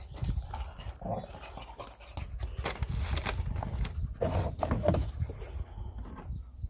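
A pet dog making short noises close to the microphone, in several bouts, over a low rumble.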